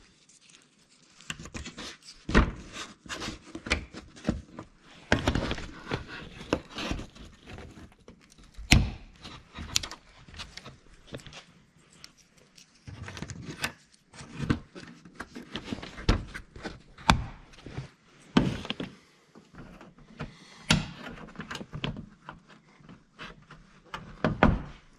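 Plastic push-pin trim clips being pressed back into a plastic trim cover: a string of irregular thunks and clicks, with rustling handling of the panel between them.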